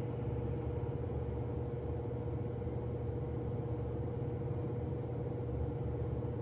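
Steady low mechanical hum with a faint, steady higher tone above it.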